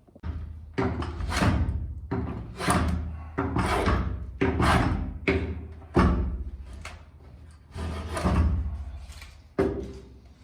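Repeated strokes of a hand tool working wood, roughly one a second. Each starts with a sharp knock and fades off in a hiss.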